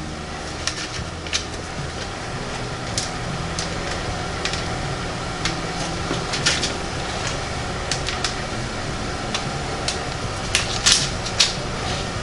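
Scattered light ticks and crinkles as chopped pecans are sprinkled over cookie dough on metal baking pans and the bag of nuts is handled, over a steady low hum.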